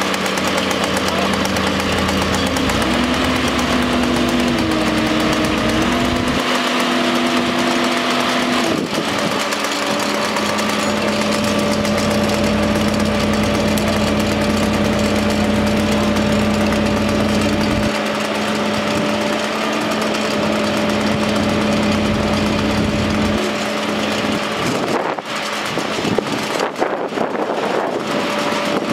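Fire engine's motor running to power its hydraulic turntable ladder, a steady hum that steps up and down in pitch several times as the ladder is raised and extended, with a few irregular knocks near the end.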